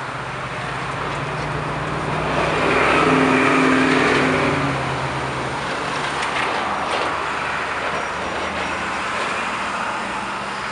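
A city bus's engine running as the bus turns and pulls past close by, growing loudest about three to four seconds in. After that, a van and other cars pass in steady traffic.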